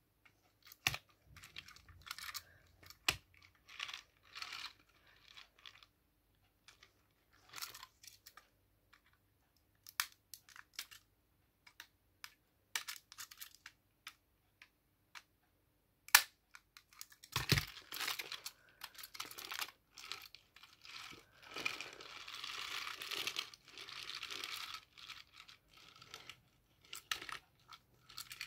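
Metal-and-plastic toy train cars being handled and fitted together: scattered clicks and knocks, with a longer stretch of scraping and rubbing past the middle.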